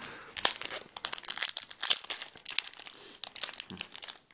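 Foil Yu-Gi-Oh booster pack wrapper crinkling as it is worked open by hand: a rapid run of sharp crackles.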